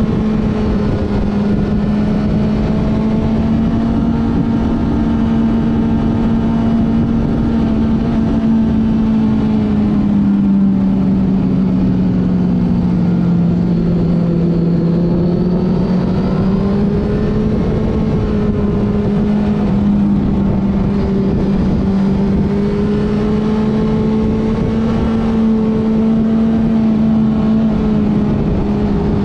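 1995 Honda CBR900RR's inline-four engine running hard at a fairly steady pitch through a long corner, heard from on board the bike over constant wind noise. Around the middle the revs sag slowly, then build back up to the earlier pitch.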